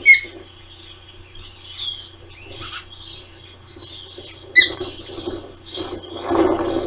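Osprey chicks peeping in many short high chirps while being fed, with two sharp, loud osprey chirps, one right at the start and one about four and a half seconds in. A burst of rustling noise comes near the end.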